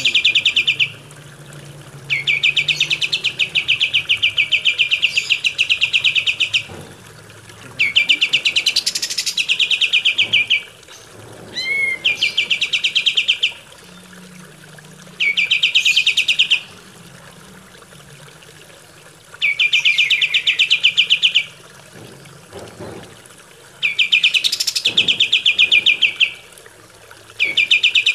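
Kapas tembak, a bulbul, singing a series of fast, rattling trills, each lasting one to four seconds, with short pauses between them. A short rising whistle comes a little before the middle.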